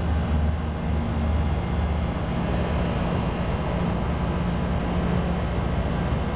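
An engine running at a steady idle, a low, even rumble with no change in speed.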